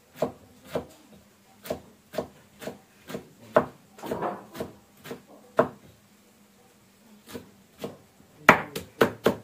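Knife chopping leafy greens on a thick round wooden chopping block: single knocks about two a second, a pause of about a second and a half past the middle, then a quicker run of chops near the end.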